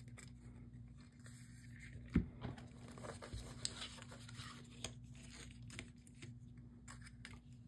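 Faint handling sounds: a display stand holding a silver bar set down on a padded mat with one knock about two seconds in, then light clicks and rustles as a card, a sticker and a keychain are laid out beside it. A low steady hum runs underneath.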